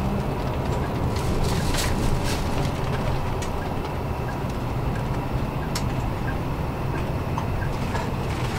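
Highway coach's engine and tyre drone heard from inside the passenger cabin while driving, a steady low rumble with a few sharp clicks and rattles from the cabin fittings.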